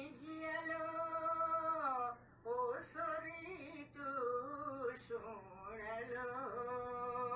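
A woman sings a Kumaoni rituraim seasonal folk song solo. She draws out long notes that bend gently, in phrases with brief breaks about two seconds and four seconds in.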